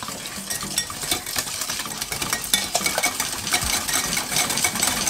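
Wire balloon whisk beating eggs and sugar in a glass bowl: a rapid, steady patter of wires clicking and scraping against the glass.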